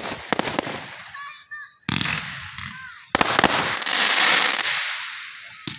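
Fireworks going off: dense crackling at the start, then a sudden burst about two seconds in and a louder one about three seconds in, each trailing off in a long hissing, crackling shower. A sharp crack comes near the end.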